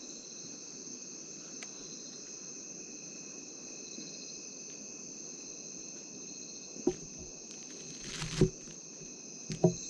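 Night insect chorus, mostly crickets, trilling steadily on several high pitches. In the last few seconds come a few sharp knocks and a short rustle.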